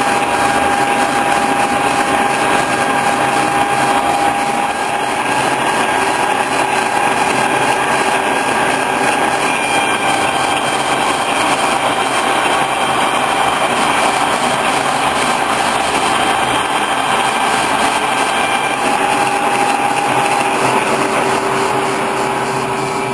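Boring mill spindle driving a helical-tooth milling cutter through a steady cut across a milling vise body: a constant machine drone with a steady whine held over it.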